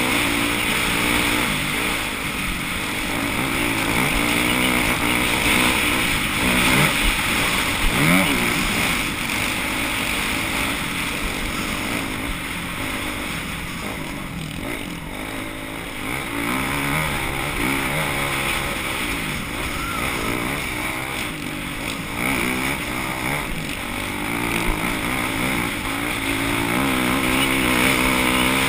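An off-road vehicle engine running and revving, its pitch rising and falling again and again as it works over the course.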